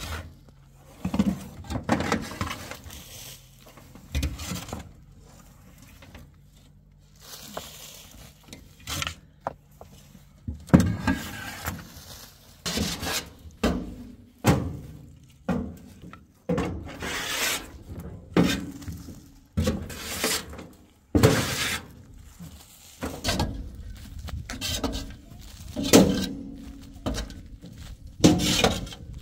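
Shovels scraping and knocking across the metal bed of a pickup truck as animal manure is shoveled off it onto a field, in many irregular strokes.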